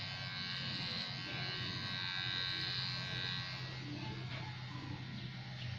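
Electric hair clippers running with a steady buzz, held against the head cutting hair. About three and a half seconds in the higher, brighter part of the buzz fades and the hum carries on a little quieter.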